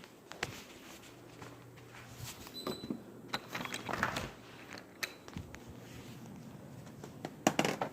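Scattered clicks, knocks and rustling of someone moving about and handling things, busiest in the middle, with a quick cluster of sharp clicks near the end.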